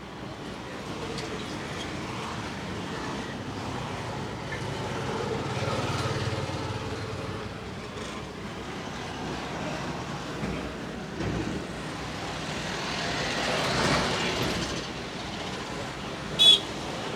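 Road traffic passing: a steady rumble that swells as vehicles go by, about six and fourteen seconds in. A short, sharp high-pitched beep comes near the end.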